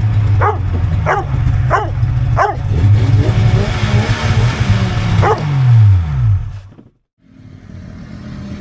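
Polaris XLT 600 three-cylinder two-stroke snowmobile engine idling while a dog barks about twice a second. About five seconds in the engine revs briefly and falls back, then the sound cuts off abruptly, returning fainter with an occasional bark.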